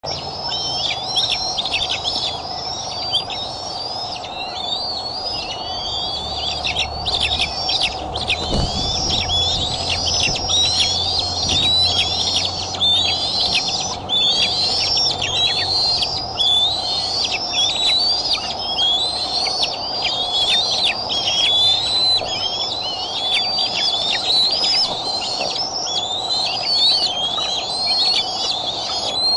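Juvenile bald eagle calling over and over: high, chittering whistles that fall in pitch, about one a second. A steady faint hum runs underneath.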